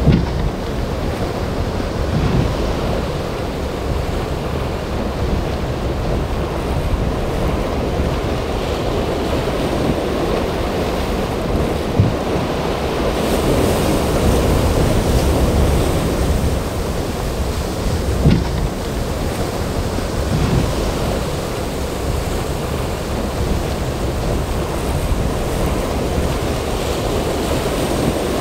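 Rough inlet surf: waves breaking and churning, with strong wind rumbling on the microphone. A few brief thumps stand out, about twelve and eighteen seconds in.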